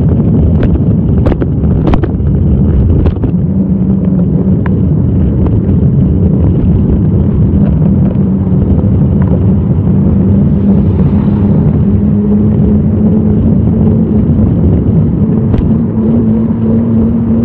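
Loud, steady rumble of wind and road noise on a phone microphone while cycling through city traffic, with a steady low hum running under it. A few sharp clicks sound in the first three seconds, and one more near the end.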